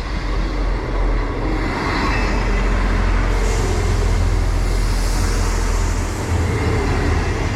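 Class 158 diesel multiple unit running at a station platform, its diesel engines giving a steady low hum. A hiss of air rises about three seconds in and fades after a few seconds.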